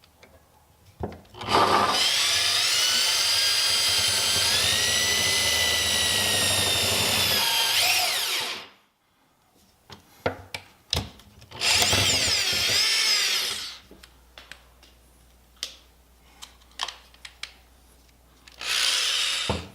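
Power drill boring a hole through the car's sheet-metal body. The motor whines with a pitch that shifts under load: one long run of about seven seconds, a shorter run of about two seconds, then a brief start near the end, with scattered clicks and knocks in between.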